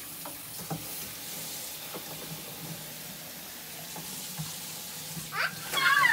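Tap water running into a stainless steel sink, a steady hiss, with a child's brief high-pitched voice near the end.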